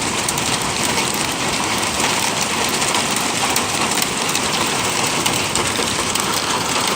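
Heavy rain and hail beating on the house in a severe thunderstorm: a steady, dense hiss peppered with many small hits. It comes as a microburst passes over.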